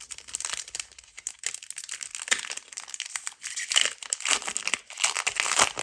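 Foil booster-pack wrapper of a Pokémon trading card pack crinkling and crackling in irregular bursts as it is handled and torn open.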